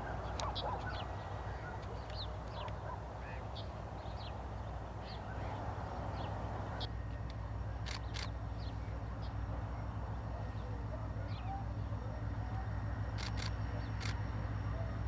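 Diesel freight locomotive running at a distance with a low steady rumble, while small birds chirp throughout. A few sharp clicks fall in the second half.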